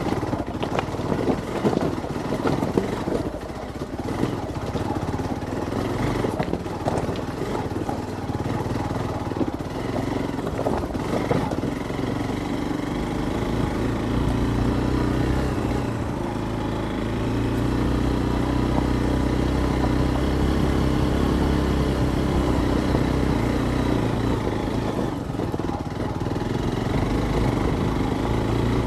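Hero XPulse 200's single-cylinder engine running as the motorcycle rides a rough, stony track. For about the first twelve seconds it comes with frequent knocks and clatter, then the engine note grows steadier and stronger.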